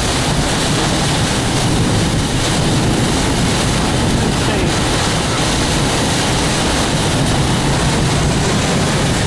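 Severe thunderstorm winds driving rain against a vehicle, heard from inside the cabin: a loud, steady rushing noise.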